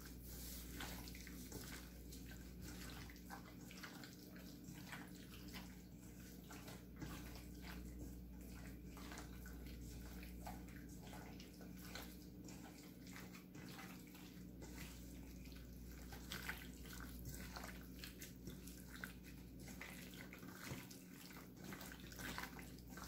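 Gloved hand kneading and turning chunks of raw beef in a wet marinade in a stainless steel bowl: faint, irregular wet squelches and soft clicks.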